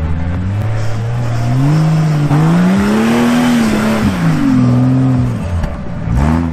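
Off-road 4x4 engine revving hard: its pitch climbs for a couple of seconds, drops, climbs again, then falls away near the end.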